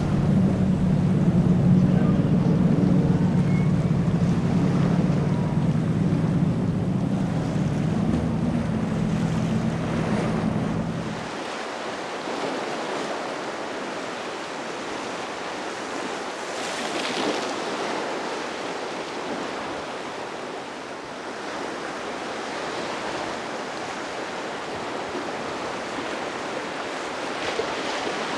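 A motorboat's engines running with a steady low drone for about the first eleven seconds, then giving way abruptly to waves and rushing water with wind on the microphone.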